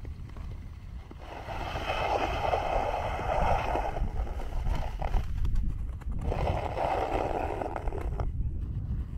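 Tour skate blades gliding on natural lake ice: two long scraping glides, the first a little over three seconds, the second about two seconds, over a steady low rumble of wind on the microphone.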